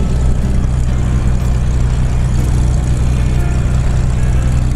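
Cessna 210 Centurion's piston engine and propeller running at low taxi power, a steady low drone heard from inside the cabin.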